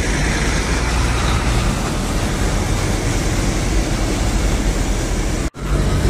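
Heavy trucks passing on a wet road: a steady low diesel rumble under a hiss of tyres on wet asphalt. The sound drops out suddenly for a moment near the end, then comes straight back.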